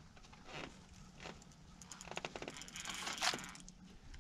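Quick rattling clicks of a fishing reel as a hooked blue catfish is played on a bent rod, densest and loudest a couple of seconds in, over a faint steady low hum.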